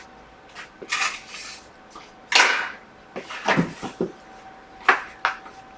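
Small metal tools and phone parts handled on a repair bench: a handful of sharp clicks, taps and short scrapes, spaced about a second apart, as an iPhone logic board is taken out of its power-supply test setup.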